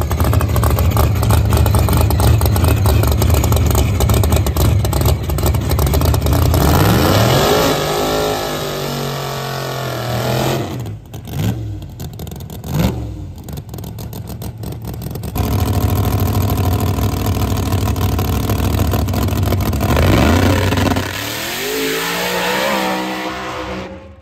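A drag-racing car's engine at full throttle on a pass. It holds a loud, steady drone for several seconds, then revs rise and fall as it shifts through the gears. The sound breaks off suddenly several times.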